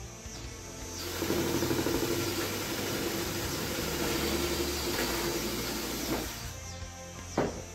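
A cordless drill runs steadily for about five seconds while working into the windshield's mounting block, then stops. A sharp click follows near the end.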